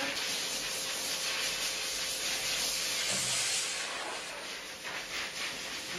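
Steady hiss of a hand-held shower spraying water in a dog-grooming tub, briefly brighter about three seconds in.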